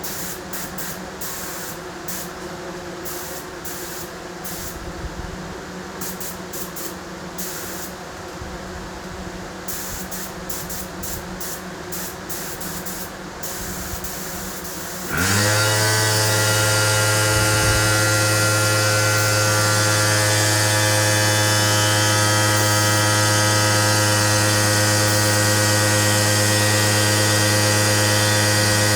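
Spray gun hissing in short on-off bursts while primer is sprayed. About halfway through, an air compressor's electric motor spins up with a rising whine and then runs steadily with a loud hum, much louder than the spraying.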